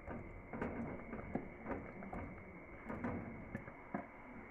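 Sliced star fruit sliding out of a plastic bowl into a pot of caramel while a wooden spoon pushes and stirs the pieces: soft, irregular taps and clatter.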